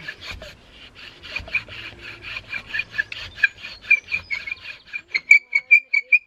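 Hazel bow drill spinning its spindle back and forth in the hazel baseboard, driven by a paracord bow: a rhythmic, squeaky rubbing of wood on wood with each stroke. The strokes come faster and louder about five seconds in, as the drilling wears the wood fibres down toward an ember.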